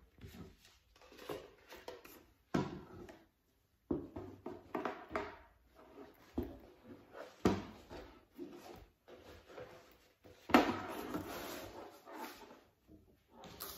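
Handling noises from a toiletry pouch and its fabric dust bag: irregular rustling with light knocks, and a longer spell of rustling about ten and a half seconds in.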